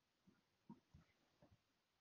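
Near silence, with four faint, short handling sounds as hands turn a crocheted swatch and hook.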